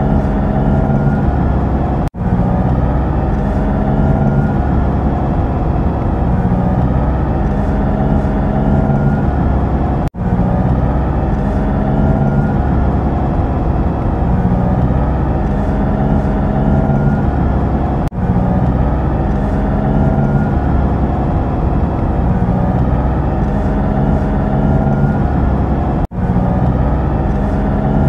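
Looped propeller-plane engine sound effect: a steady engine drone with a recurring rising tone. The loop restarts about every eight seconds with a brief dropout.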